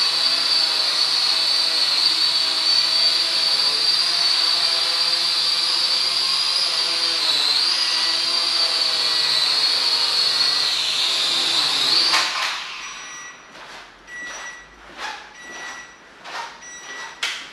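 Zero-X Pulse toy quadcopter's propellers and small motors whining steadily in flight, dipping in pitch briefly around the middle, then cutting off with a knock about twelve seconds in as it comes down. After that, a run of faint clicks and short beeps.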